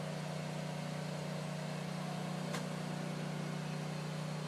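Engine of a grout pump running at a steady speed, a constant low hum, with one short tick about two and a half seconds in.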